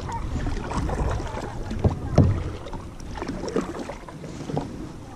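Kayak being paddled: the paddle dipping and splashing, with a few knocks about two seconds in. Wind rumbles on the microphone throughout.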